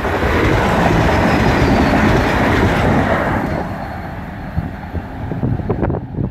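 Greater Anglia Class 755 bi-mode multiple unit passing over a level crossing, loudest in the first three seconds and then fading away.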